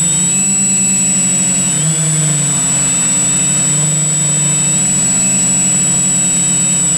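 Multirotor drone's propellers and motors whining steadily, their pitch shifting a little now and then, with a constant thin high tone above.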